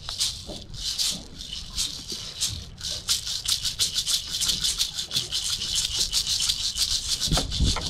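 Two hand-held rattles on sticks being shaken, at first in spaced shakes and from about three seconds in in a fast, steady rattle. A low thud comes near the end.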